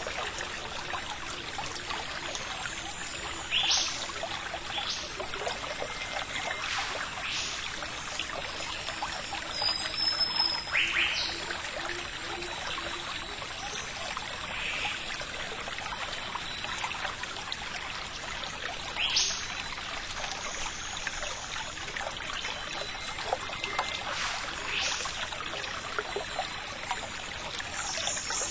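Steady sound of running water, like a trickling stream, with a few brief high-pitched sounds scattered through it.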